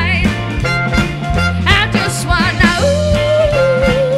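Live pop covers band playing an upbeat number: a female lead singing over a steady bass line and drums. Near the end a long note is held with vibrato.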